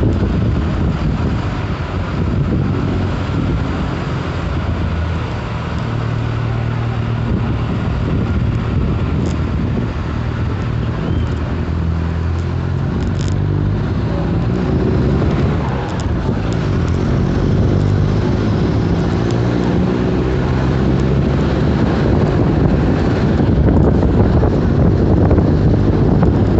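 Exhaust of a Mercedes-Benz OF-1721 Euro 5 bus's four-cylinder turbodiesel engine running, its note shifting up and down in steps as the revs change.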